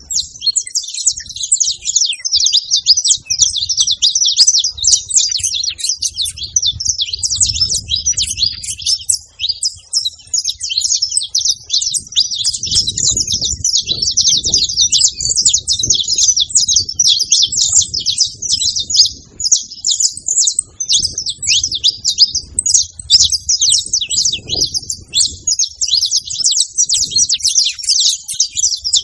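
Saffron finches singing, a dense, unbroken stream of rapid high chirps.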